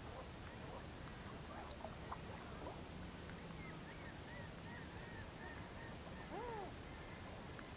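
Faint whooper swans calling with other birds, a scatter of short calls and a quick run of high notes in the middle, and one clearer arched call near the end.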